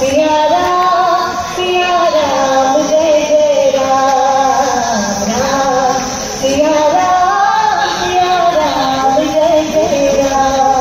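Music with a woman singing one continuous, gliding melody.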